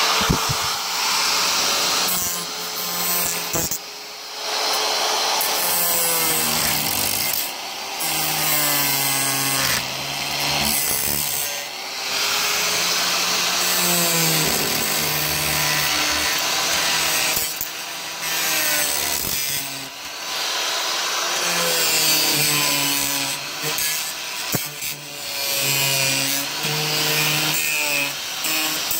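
Power tool sawing through the camper's FRP roof paneling in long runs. Its motor pitch sags and recovers as the blade bites, with a few brief let-offs between cuts.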